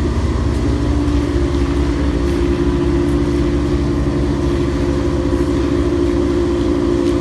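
Engine of a rainwater pump running steadily at constant speed, with an even low hum.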